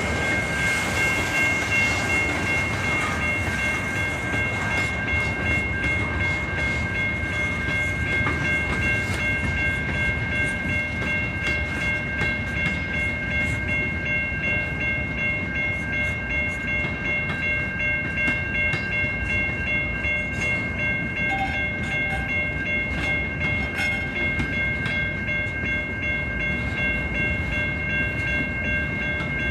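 Freight train rolling past: tank cars and then empty centerbeam flatcars, the wheels rumbling and clicking over the rail joints. A steady high ringing tone sits over the rumble.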